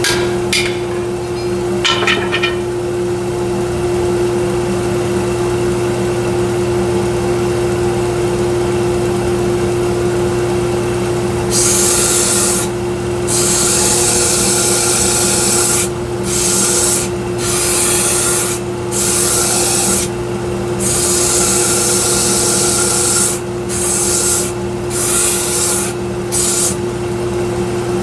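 A 1x42 belt sander running with a steady hum. From about halfway, a workpiece is pressed to the belt in about nine passes, each a second or two of loud rasping sanding, as the axe head and handle are fitted to each other.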